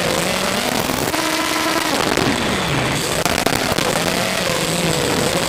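Brushless motors and 5-inch three-blade props of an FPV racing quadcopter whining, their pitch wavering up and down with the throttle, over a heavy hiss. The pitch falls about two seconds in and climbs back, a throttle chop and punch.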